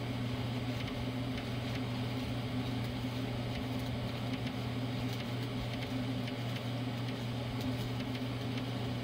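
Lincoln AC-225 arc welder humming steadily under load while stick welding, fed from a 12-volt battery bank through a 220-volt power inverter, with a faint irregular crackle from the arc.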